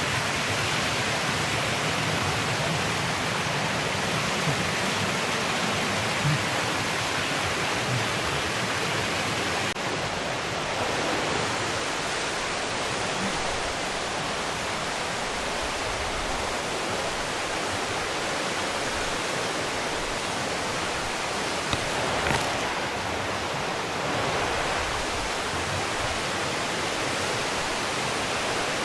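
Steady rushing of a mountain stream and its waterfalls in a rocky gorge, with a light knock or two about two-thirds of the way through.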